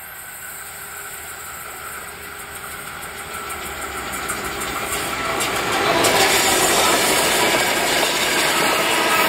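81 class diesel-electric locomotive with an EMD two-stroke V16 engine, growing steadily louder as it approaches and passing close about six seconds in, followed by the wheels of ballast wagons rolling over the rails.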